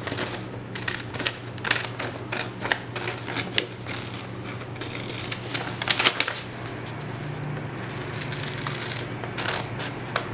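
Scissors cutting through a printed sheet of paper: a run of irregular crisp snips with paper rustling, easing off for a couple of seconds about seven seconds in.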